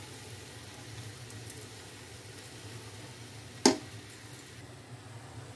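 Banana pakoras deep-frying in hot oil in a pan: a soft, steady sizzle with faint crackles that thin out near the end. About two-thirds in, a metal-handled spatula gives one sharp clack against the pan.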